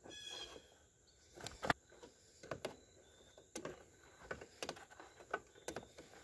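Faint, irregular metal clicks and taps, about one every half second to a second, as filter pliers grip and turn a spin-on hydraulic filter loose on a Case Ingersoll garden tractor.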